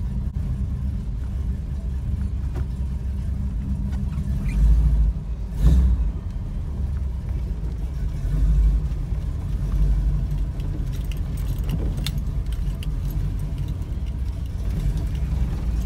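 Engine and road rumble heard from inside a truck cab while driving, steady and low, swelling a little now and then. There is one sharp thump a little past the middle, and a few faint ticks.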